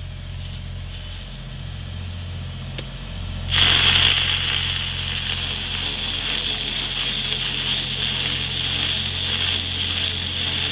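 A welding machine hums steadily. About three and a half seconds in, a stick-welding arc on a cellulose-coated E6010/E7010 electrode strikes suddenly and keeps up a steady, harsh crackle.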